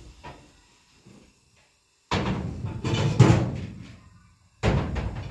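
Kitchen cupboard doors being opened and things moved about inside, with knocks and clatter. A dense burst of it starts abruptly about two seconds in, and another near the end.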